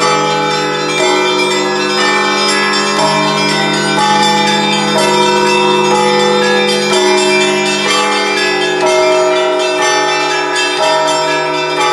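Russian Orthodox church bells rung by hand by a single bell ringer, a festive Easter-week peal. Small bells ring a quick, steady pattern over deeper bells, which are struck again about every two seconds, all overlapping.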